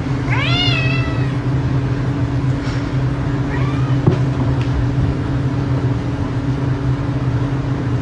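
A domestic cat meows once near the start, a long call that rises and then falls in pitch, and gives a shorter, fainter meow about three and a half seconds in. Under both runs a steady low hum, with a single sharp click about four seconds in.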